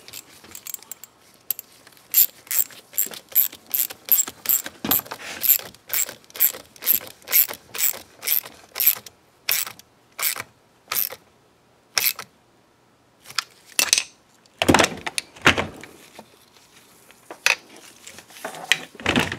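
Hand ratchet clicking in an even run of strokes, about two to three clicks a second, as a socket tightens the acorn nut on the water pump impeller shaft of a Honda ATC250R engine. A few louder knocks of tools or parts being handled come about three quarters of the way through and again near the end.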